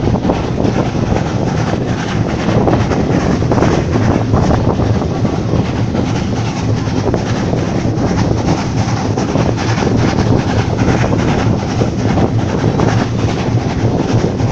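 Vintage railway passenger coach running along the track: a steady rumble of wheels on rail, with many short clicks and knocks.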